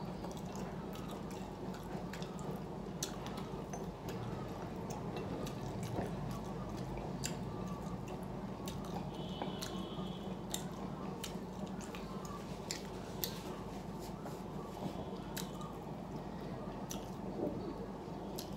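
Close-up wet chewing and lip smacks of a person eating rice and fish curry, with many small irregular clicks over a steady low hum.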